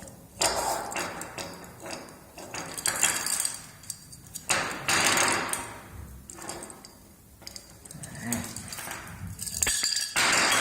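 Small plastic turn-signal lamp parts being handled and pressed together by hand: several bursts of scraping, rattling and sharp clicks as an LED strip is fitted into the lamp housing.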